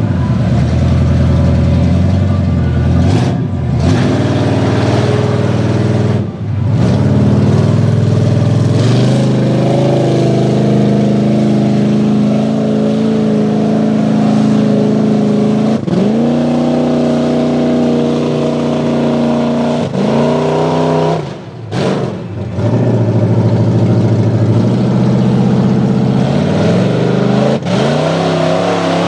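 Lifted GMC mud truck's engine revving hard as it churns through a water-filled mud pit. The revs are held high, then fall off sharply and climb back about four times.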